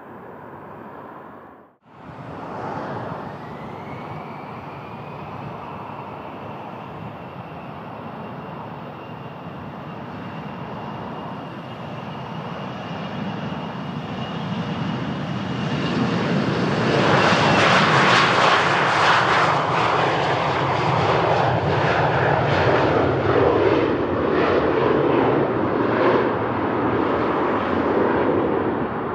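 Twin-engine Gulfstream business jet taking off: its jet engines build steadily with a thin high whine over them, growing much louder a little past halfway, then a crackling roar as it climbs away.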